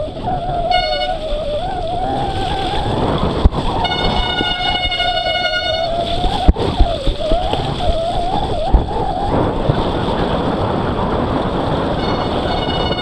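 Mountain bike coasting down a muddy descent: a buzz from the freewheel hub wavers up and down in pitch with the bike's speed, over steady rushing tyre and wind noise. A few sharp knocks come at about three and a half, six and a half and nine seconds in.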